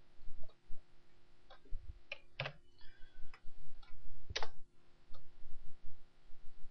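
Scattered single clicks of a computer mouse and keyboard, irregular and spaced roughly half a second to a second apart, over a faint steady hum.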